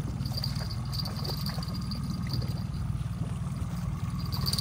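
Boat's outboard motor running steadily at trolling speed, with water splashing and trickling as a hooked kokanee salmon is netted at the stern.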